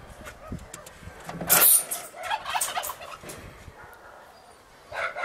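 Cats fighting: a loud, sharp hiss about a second and a half in, then a stretch of short broken cries, with more cries near the end.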